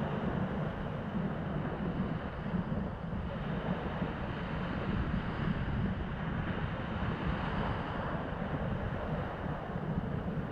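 Sea surf washing on the shore, with wind blowing across the microphone; a steady rushing noise.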